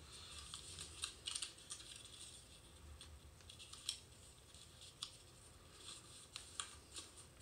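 Origami paper being folded and creased by hand: faint, scattered crisp crinkles and ticks at irregular moments.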